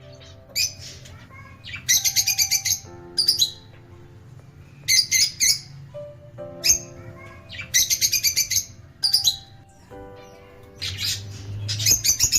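Lovebirds (rosy-faced and Fischer's) chattering in rapid trains of shrill chirps. The chirps come in repeated bursts about a second long, over a steady low tone.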